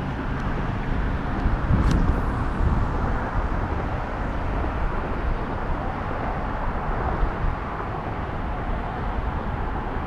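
Steady wind noise on the microphone, heaviest at the low end, with one sharp click about two seconds in.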